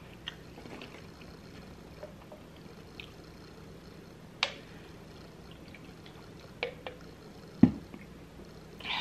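Soft close-up eating and drinking sounds: scattered mouth clicks and smacks, and sips from a drink can, with a louder low thump near the end.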